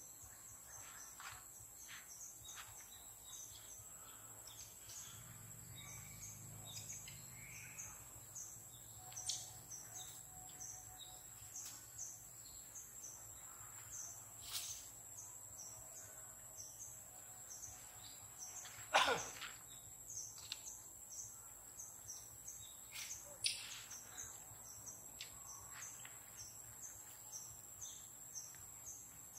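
Faint forest ambience: a steady high insect drone with scattered short bird chirps. One louder short call comes about 19 seconds in.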